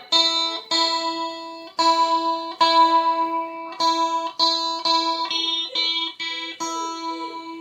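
Electric guitar played through an amplifier with the effect pedals switched off, one note picked over and over, about a dozen times, each note ringing briefly before the next, with a few other notes mixed in after the middle.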